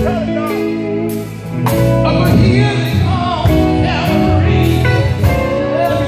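Live gospel band playing with a steady beat of about two strokes a second, with a man singing through a microphone and PA over it.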